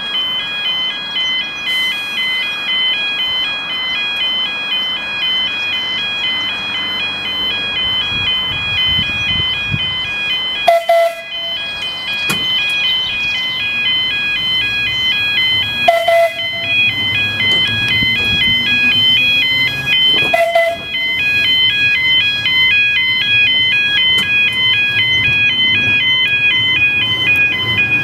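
Level-crossing audible warning sounding a continuous two-tone alarm, alternating steadily between a higher and a lower pitch. Three short sharp clanks, each with a brief ring, break in at about 11, 16 and 20 seconds in and are the loudest sounds.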